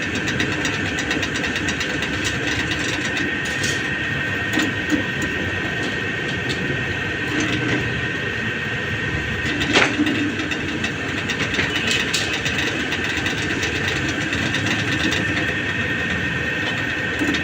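Steady mechanical running noise with a constant high whine and scattered light clicks, and a sharper knock about ten seconds in.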